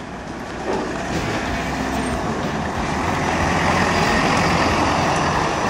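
A motor vehicle's engine running close by: a steady, loud rumble and rush of noise that builds up about a second in and then holds.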